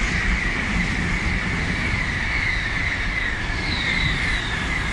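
Coupled E2 series 1000 and E3 series 2000 Shinkansen passing at high speed. A loud, steady rush of wheel, rail and air noise, with a high-pitched whine that pulses as the cars go by.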